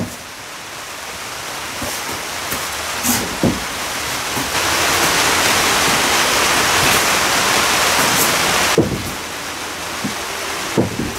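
Heavy laminated timber keel pieces knocking dully a few times as they are handled and set in place, over a loud steady rushing noise.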